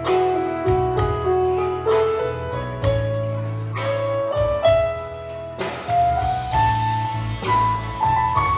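Live keyboard music, an instrumental break: a lead melody of held notes, climbing higher near the end, over a steady bass and a light beat.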